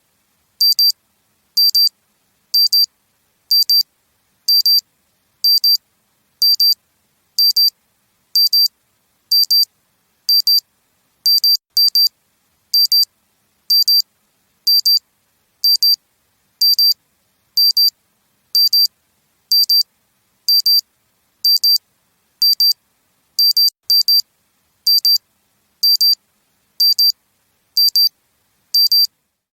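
Digital wristwatch alarm beeping: quick high-pitched double beeps repeating evenly about once a second.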